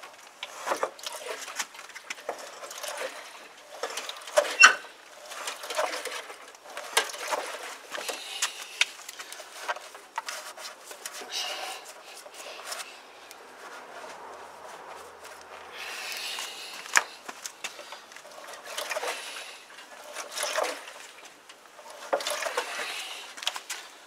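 A cloth rag rubs up and down the chrome fork stanchion of a Yamaha YBR125 in several short rustling strokes, wiping the leg clean around a freshly reseated fork seal. Scattered knocks and clicks come from handling the front end of the bike.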